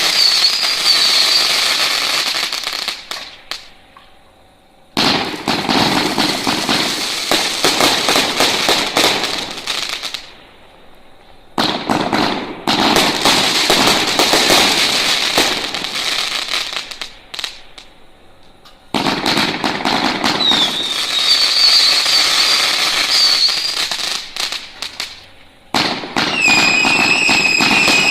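Gunpowder Plot 100-shot firework cake firing in volleys: several rows of dense crackling shots and bursts, each a few seconds long, with short quieter gaps between them. Whistles rise over some volleys, and near the end a steady shrieking whistle carries over the shots.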